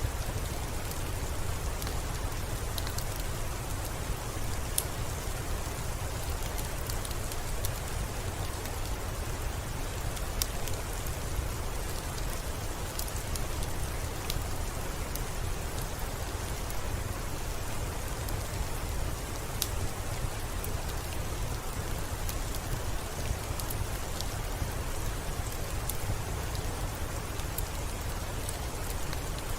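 Steady rainfall, a dense even hiss with a low rumble underneath and scattered sharp ticks of individual drops striking close by.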